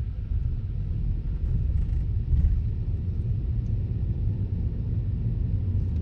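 Steady low rumble of a car driving slowly, heard from inside the cabin.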